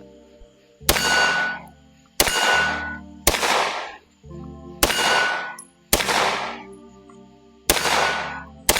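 A CZ Shadow 2 9mm pistol firing seven shots at an irregular pace, about one every one to one and a half seconds. Each shot has a brief ringing tail. Background music plays underneath.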